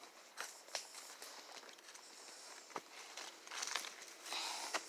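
Footsteps through woodland undergrowth: irregular crunches and snaps of leaves and twigs, with a longer rustle of brushed foliage near the end.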